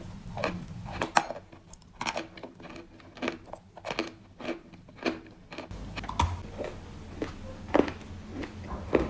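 Crunchy balls being crunched close to the microphone: a run of sharp, irregular crackles, about two a second.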